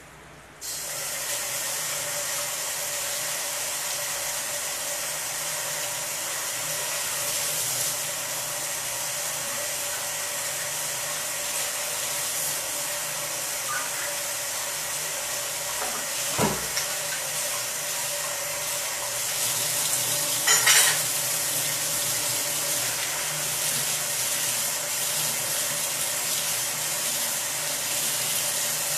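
Coconut-milk curry sauce simmering in a frying pan: a steady sizzling, bubbling hiss with a faint steady hum under it. A single knock sounds about 16 seconds in, and a brief louder crackle about 20 seconds in.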